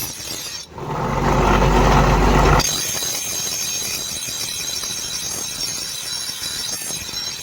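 A workshop machine running: a loud burst with a deep hum for about two seconds, then a steadier, quieter running noise with a high whine.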